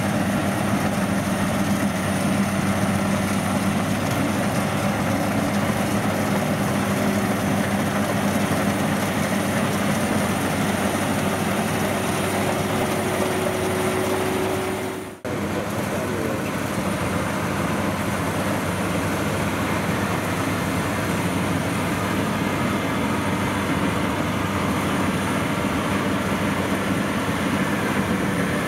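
World WD102PRO rice combine harvester running steadily while cutting rice: a continuous engine and machinery drone with a low hum. The sound drops out briefly about halfway through.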